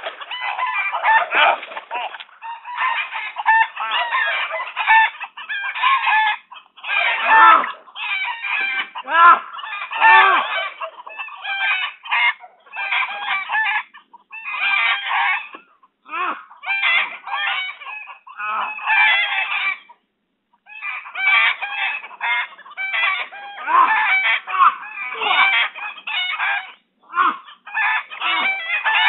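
Chickens clucking and roosters crowing almost without a break, with a short gap about twenty seconds in.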